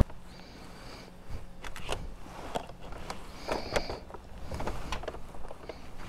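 Quiet handling sounds: scattered light knocks and clicks with a few brief rustles, no engine running.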